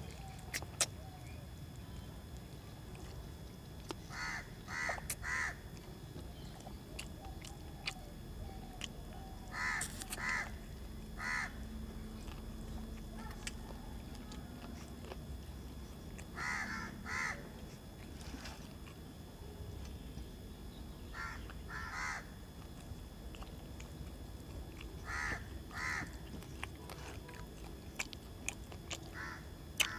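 A crow cawing in short runs of two or three caws, repeated about every five seconds, over faint chewing from someone eating by hand.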